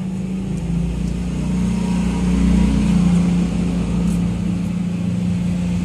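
A vehicle engine running steadily, a low pitched hum with rumble that swells slightly in the middle.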